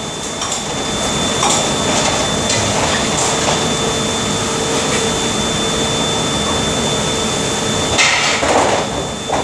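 Steady loud noise of dishwashing machinery running, with a thin high whine and a low hum. A short clatter of dishware comes about eight seconds in.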